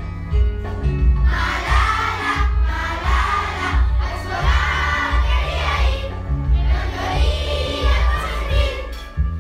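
A song sung by a group of voices over a backing track, with a bass line that steps from note to note about twice a second.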